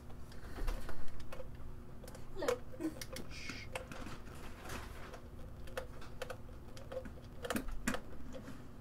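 Irregular clicks and taps of plastic kettle parts and a metal screw being handled as a long screw is drawn out of the Bodum Bistro kettle's plastic handle, with a louder knock about a second in.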